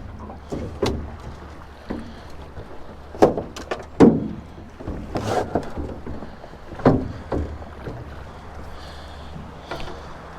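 Knocks and thuds of people and gear shifting about in a rowed boat, about nine irregular hard knocks over a low steady background, the loudest about three and four seconds in.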